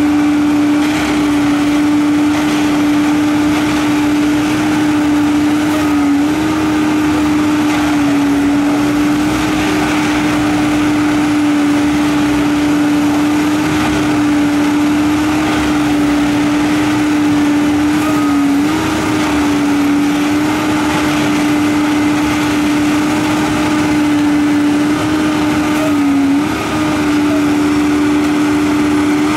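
Harsco 6700SJ2 track tamper's diesel power unit and hydraulics running hard with a strong, steady drone. The pitch sags briefly several times.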